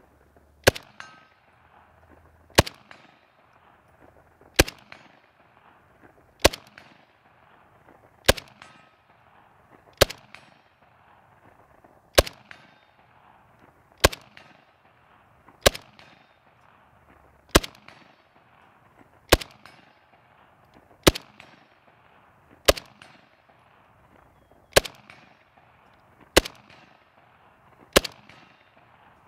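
Romanian WASR-10 UF underfolder AK rifle, in 7.62×39, firing single shots in slow, steady semi-automatic fire: sixteen sharp shots, about one every 1.8 seconds, each with a short ringing tail.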